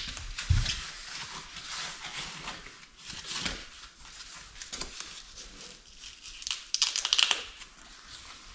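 Plastic and foam packing wrap crinkling and rustling as a muffler is unwrapped by hand, in irregular handling noises with a dull thud just after the start and a louder burst of crinkling about seven seconds in.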